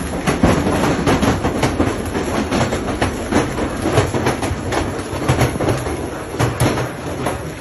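Large hailstones pelting down, a dense, irregular clatter of many impacts that keeps up without a break.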